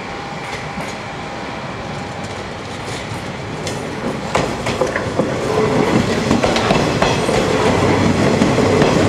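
A JR West 115-series electric train approaching and passing close by. Its wheels clack over the rail joints, and the sound grows louder from about four seconds in as the cars roll past.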